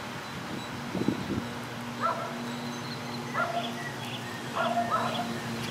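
A dog whining with short, high yips, a few times, over a steady low hum.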